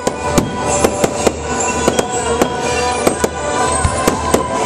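Aerial fireworks shells bursting in a rapid, uneven string of sharp bangs, more than a dozen of them at about three a second. Music with long held notes plays underneath.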